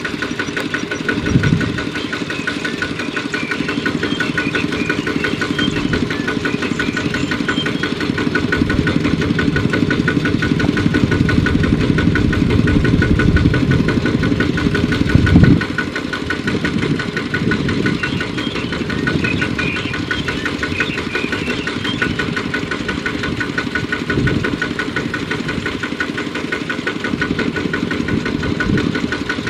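Single-cylinder diesel engine of a two-wheel power tiller running steadily while hauling a trailer loaded with rice sacks, with a brief louder surge about halfway through.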